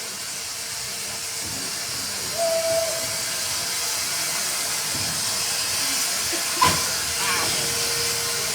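Locomotive venting steam in a steady hiss that grows slowly louder. There is a short single tone about two and a half seconds in and a sharp knock a little after six seconds.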